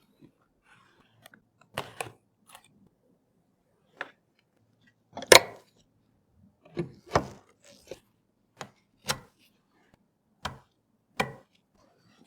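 Computer parts being handled and fitted together during a PC build: about a dozen separate sharp clicks and knocks at irregular intervals, the loudest about five seconds in.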